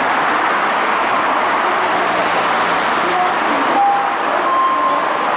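Steady road traffic noise from cars on the multi-lane road beside the station, with a couple of short high tones about four seconds in.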